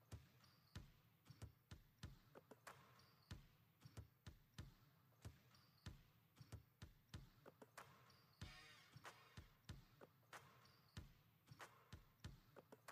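Very faint, irregular knocks, about two or three a second, over near silence.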